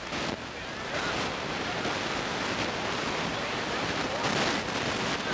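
Steady rushing noise of wind on a camcorder microphone, with faint voices in the background.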